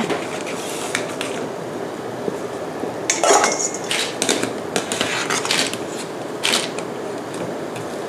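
Wire-mesh strainer clinking and scraping against a stainless steel stockpot as pork bones are scooped out of the broth, with a cluster of clanks from about three seconds in, over the steady sound of the simmering broth.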